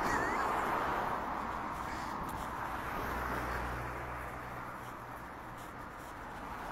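Cars passing close by on a road. The tyre noise swells and fades, once at the start and again about three seconds in, when a low engine hum joins it.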